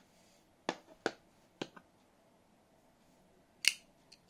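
Small metal clicks from the folding knife built into a pistol-shaped lighter's magazine as it is handled and its blade is opened: three light clicks in the first two seconds, then one louder click near the end.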